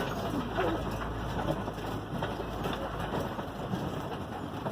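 Steady rumbling noise of an open safari vehicle moving along a rough track.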